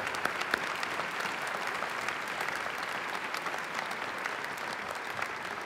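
Large audience applauding steadily, a dense patter of many hands clapping, welcoming a speaker to the stage.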